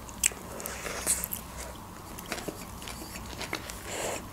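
Close-miked eating sounds of hot dogs in soft buns being bitten and chewed: scattered small wet clicks and smacks of the mouth, one a little louder about a second in.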